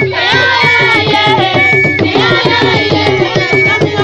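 Skin-headed hand drum beaten in a quick, steady rhythm, with voices singing over it.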